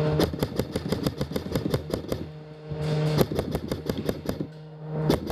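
Airsoft rifles firing in two long strings of rapid sharp shots, about seven a second, the second string starting about three seconds in, with a steady hum between the strings.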